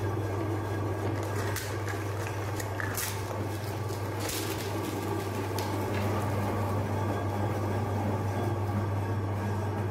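Electric meat grinder's motor running with a steady hum while it grinds small ice cream cones, with a few sharp crackles in the first half as the cones break up in the auger.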